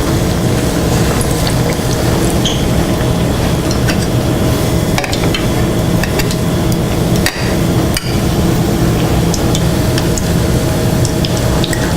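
Egg rolls sizzling as they fry in hot oil, a steady hiss broken by scattered clicks and knocks of a utensil against the pan. A steady low hum runs underneath.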